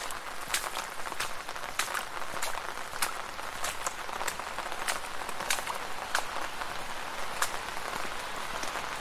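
Steady rain falling on a street, a continuous hiss with frequent sharp drips and splats of individual drops.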